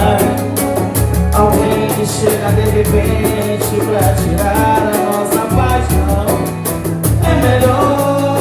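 Music with singing over a steady, regular beat and a pulsing bass line.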